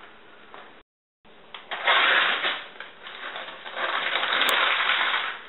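A sheet of paper being crumpled by hand: a dense crackling rustle that starts about a second in and comes in two louder spells.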